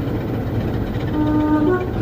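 Diesel locomotive engine idling with a steady low rumble. About a second in, a brief horn note sounds, stepping up in pitch for a moment before it stops.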